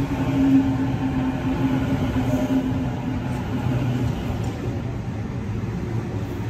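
Waratah B set electric train's IGBT-VVVF traction inverter humming with a steady tone that sags slightly in pitch and fades about four and a half seconds in as the train slows, over the low rumble of the carriages rolling past.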